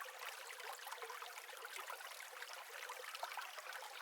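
Faint trickling water running steadily, a fine patter of small bubbling drips with no low rumble.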